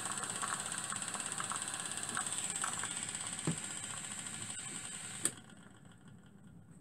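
Single-cylinder, double-acting model steam engine running fast and steady, with the hiss of the butane torch that fires its boiler. There is a single knock about halfway, and about a second and a half before the end a sharp click, after which the sound falls away to a faint hiss.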